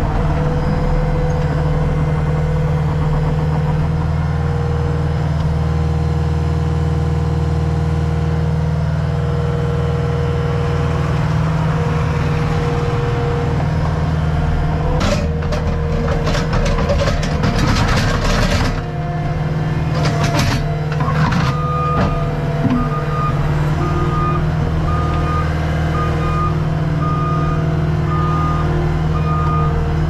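Skid steer's diesel engine running steadily, heard from inside the operator's cab. About halfway through, the grapple bucket crunches and scrapes into broken concrete slabs and dirt for a few seconds. Near the end the machine's backup alarm beeps about once a second as it reverses.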